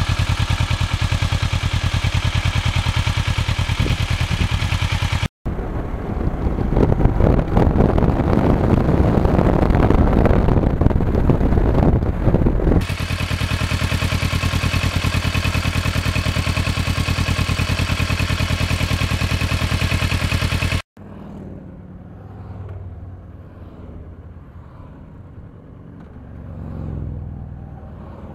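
Motorcycle engine running steadily on the move, mixed with wind noise. About five seconds in it cuts to a louder, rougher stretch, then back to a steady run. Near the end it cuts to a much quieter stretch where passing motorcycles swell up faintly.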